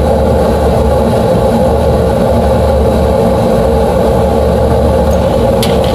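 Gas furnace running with its burners lit: a steady, loud roar and hum from the burner flames and the inducer and blower motors. One faint tick sounds near the end.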